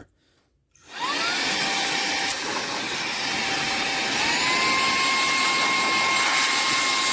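Cordless handheld vacuum's motor switching on about a second in, whining up to speed and running with a steady rush of air as a blower. About four seconds in, its whine steps up to a higher pitch as it is switched to the high setting.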